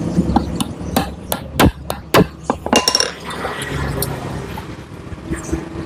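A metal hand tool clinks and knocks against a Honda Grand motorcycle engine. A quick, irregular run of sharp metallic clicks comes between about one and three seconds in.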